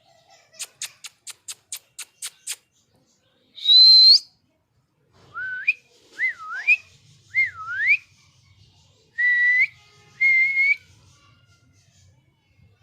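Pet parrot whistling: a loud rising whistle, then four swooping whistles that dip and climb, then two short rising whistles. Before them comes a quick run of about eight sharp clicks.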